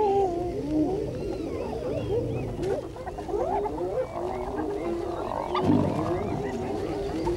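A pack of spotted hyenas calling together in a mob over a kill: many overlapping calls that glide up and down in pitch, with low growls underneath.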